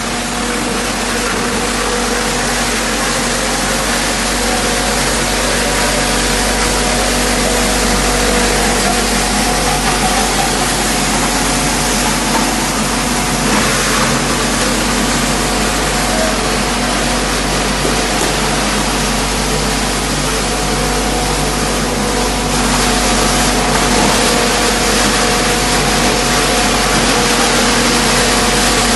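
EPS/XPS polystyrene foam crushing machine running steadily: a constant motor hum over a broad rushing noise, as pieces of foam are fed into its hopper and ground up.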